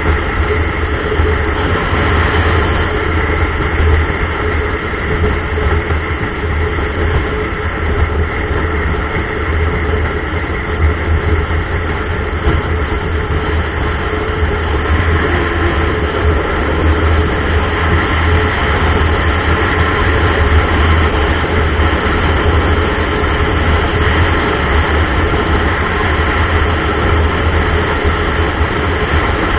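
Motorcycle riding steadily at road speed, heard through a bike-mounted camera: a continuous low drone of engine, wind and road noise with no change in pace.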